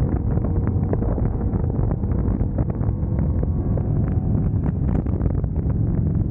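Wind buffeting the microphone on a moving Harley-Davidson Road Glide motorcycle, over the steady low rumble of its V-twin engine.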